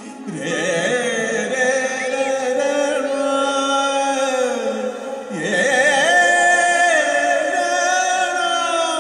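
Music with a voice singing long, wavering held notes in two phrases, the second starting about five seconds in.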